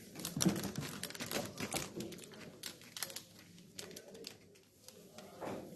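Boccette balls clattering on a billiard table: a quick run of sharp clicks and knocks for about three seconds, then a few scattered clicks.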